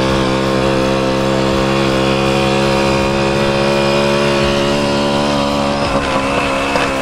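Motorcycle engine running at a steady speed, its hum holding one even pitch.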